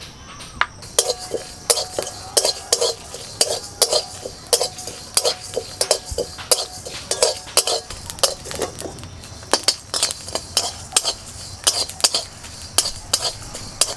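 Flat metal spatula scraping and clinking against a thin aluminium kadai as whole spices (dried red chillies, coriander, cumin and panch phoron) are stirred while they dry-roast, a couple of strokes a second starting about a second in.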